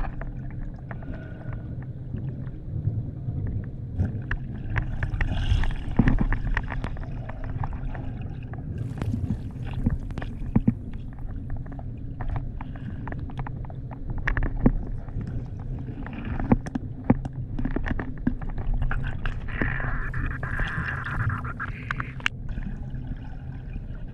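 Underwater sound picked up by a GoPro in its housing in shallow sea: a steady low rumble with many small clicks and knocks from handling the camera, and a short gurgle of bubbles near the end.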